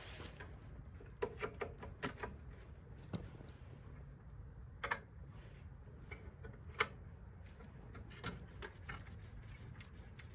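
Scattered light clicks and taps, likely from handling the snowblower's controls before an electric start, over a faint low hum.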